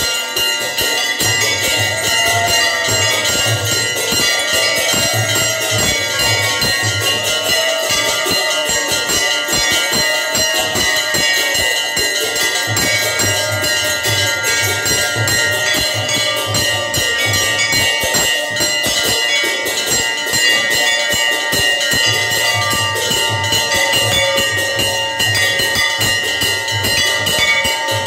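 Temple bells ringing rapidly and without a break, as during a puja offering. A low, drum-like pulsing comes and goes underneath.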